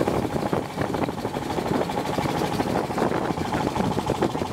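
Engine of a narrow wooden long-tail boat running steadily as the boat travels under way.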